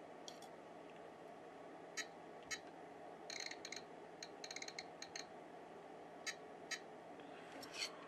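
Buttons on a LABPS3005D programmable bench power supply being pressed, each press giving a short high click-beep. There are single presses scattered through, and a quick run of presses in the middle.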